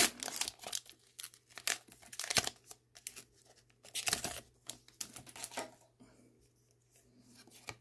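Foil wrapper of a Pokémon trading card booster pack being torn open and crinkled: a run of sharp crackling rips over the first two and a half seconds, with more crinkles about four and five and a half seconds in.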